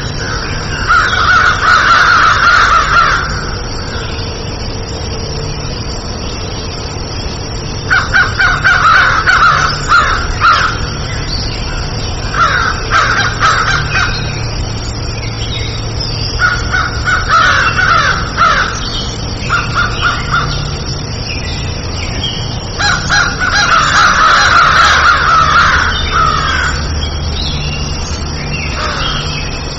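Crows cawing in bouts of rapid repeated caws, about seven bouts a few seconds apart, over a steady low hum.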